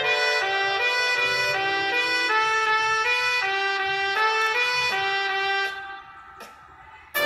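Playback of a brass band score from MuseScore notation software: a sampled, trumpet-led brass melody of short notes stepping up and down. About six seconds in the music thins out and goes quiet, and the full band comes back in loudly right at the end.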